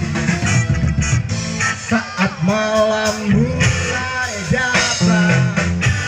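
Live rock band playing: electric guitars and bass with a singer's voice, which holds long sung notes through the middle.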